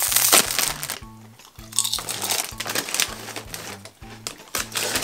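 Plastic bag of Lay's potato chips pulled open and crinkling loudly in the first second, then rustling as hands reach in, over background music.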